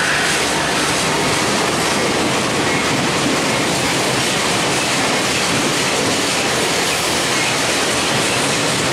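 A freight train's covered hopper cars rolling past directly below: a steady, loud rumble and rattle of steel wheels on the rails.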